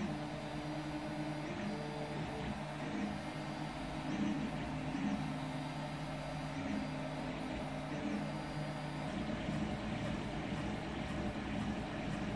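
CoreXY 3D printer printing: its stepper motors whine in short steady tones that change pitch every half second or so as the print head switches moves, over the steady hiss of the cooling fans.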